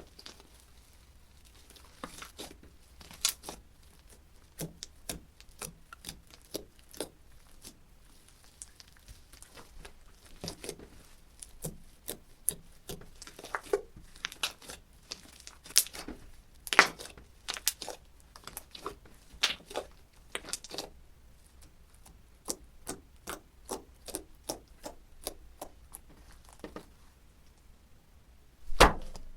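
Slime being squished and pressed by hand, giving irregular sharp pops and crackles with short quiet gaps, and a louder pop near the end.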